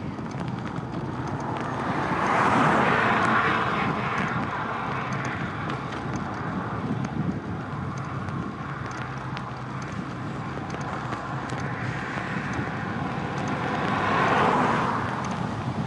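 Cars passing on a country road, their tyre and engine noise swelling up and fading away twice, about three seconds in and again near the end. Under it runs a steady rush of wind from riding a bicycle.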